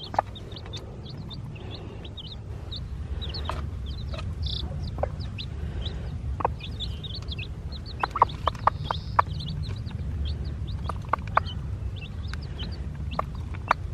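A hen with her chicks: the chicks cheep in many short, high notes alongside the hen's clucking. A run of sharp clicks comes about eight seconds in.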